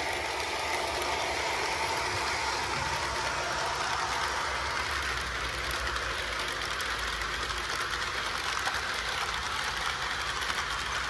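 Lionel LionChief O-gauge model train with three powered locomotives running past: a steady whir of motors and gears with wheels rattling and clicking over the track, getting a little louder in the first second or so.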